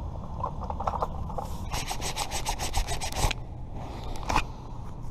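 Strong wind buffeting the microphone as a steady low rumble. Over it comes a quick run of about ten rasping scrapes about two seconds in, and another short scrape near the end.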